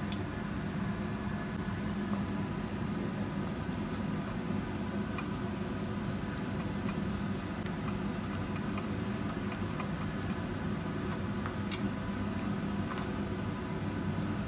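A carving knife and fork working through a roast goose, with scattered faint clicks of the metal against bone and the cutting board, a sharper click just at the start. Under it runs a steady mechanical hum.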